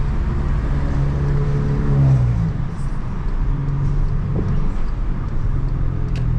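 Volkswagen Jetta 2.0 TSI turbo four-cylinder, Stage 2 tuned, running at a steady cruise with road rumble, heard from inside the cabin. The steady engine drone breaks off about two and a half seconds in and picks up again about two seconds later.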